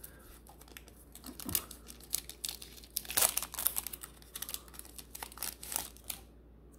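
Foil Pokémon trading-card booster pack crinkling and tearing open in the hands: a run of sharp, papery crackles, loudest about halfway through, that stops about six seconds in.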